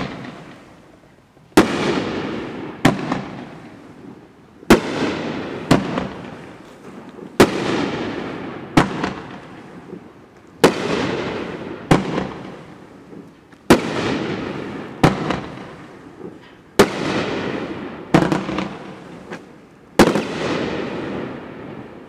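Dominator Pure Pyro 9-shot firework cake firing in sequence: sharp reports in pairs about a second apart, a pair roughly every three seconds, each followed by a long fading crackle. Each pair is a blue mine launch followed by the burst of a gold brocade shell.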